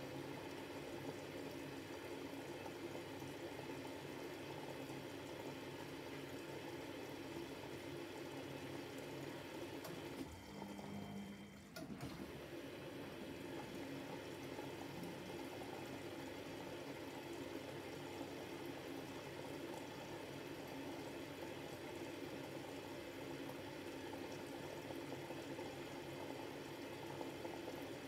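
Miele Novotronic W715 front-loading washing machine rinsing a double duvet: a steady rush of water in the drum, which drops out briefly about ten seconds in and then carries on.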